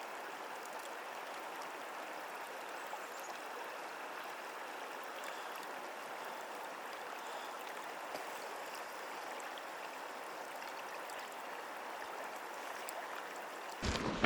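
Flowing river water: a steady, even rush of current.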